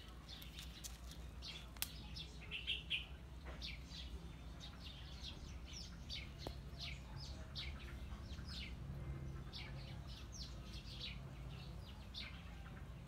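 Small birds chirping: many short, high chirps, several a second, over a faint low steady hum.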